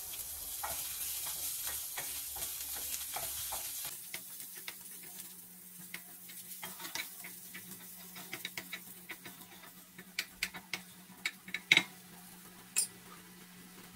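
Chopped garlic sizzling in hot oil in a frying pan, loudest for the first four seconds and fainter after, while a wooden spatula stirs and scrapes it. A few sharp clicks come near the end.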